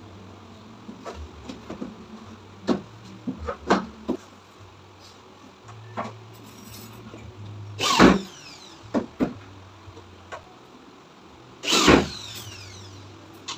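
Knocks and clacks of WPC fluted wall panels being handled and fitted into place, with two much louder sharp bursts about eight and twelve seconds in.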